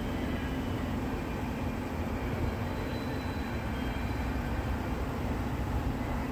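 Double-stack intermodal container cars of a freight train rolling past, a steady rumble of wheels on rail.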